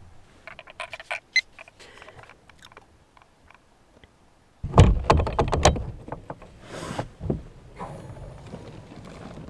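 Rustling and handling noises of a person getting up in a truck-bed camper: scattered small clicks at first, then about halfway a sudden louder rush of rustling with a few knocks.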